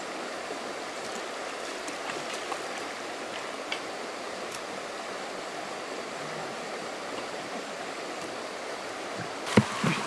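Steady rush of flowing water, with a few sharp knocks about nine and a half seconds in.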